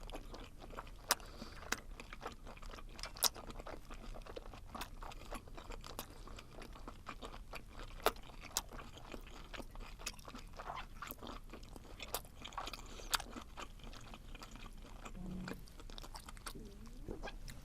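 A person chewing webfoot octopus with fresh vegetables, with irregular sharp crunches and clicks from the mouth.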